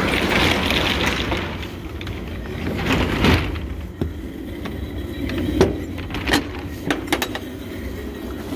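A rushing noise for the first second and a half, then a single louder burst about three seconds in and several sharp metal knocks and clunks from handling a box truck's cargo door and diamond-plate step.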